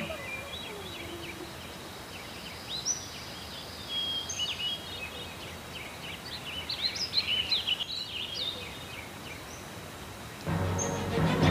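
Small birds chirping and calling over a steady background hiss, the calls busiest between about four and eight seconds in.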